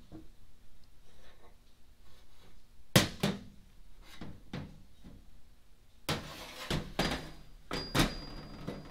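Metal parts clunking on a steel workbench as a removed drop gear and the aluminium drop-gear cover are lifted off the transmission and set down: a sharp knock about three seconds in, then a run of knocks over the last three seconds, one followed by a brief high ring.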